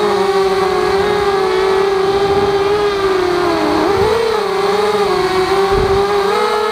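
Walkera Rodeo racing quadcopter's motors and propellers whining steadily, heard close up from its onboard camera; the pitch dips and swings back up a little past the middle as the throttle changes.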